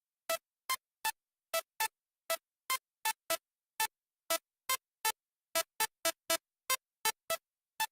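Music: a sparse synthesizer melody of short, separate notes, about three a second, with silence between each note.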